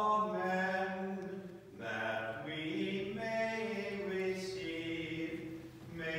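Unaccompanied Byzantine liturgical chant, sung by voices in long held phrases, with a short breath break about two seconds in.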